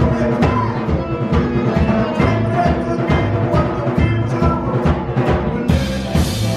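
Live band music with the drum kit prominent and steady drum hits, topped by a cymbal crash that swells about six seconds in.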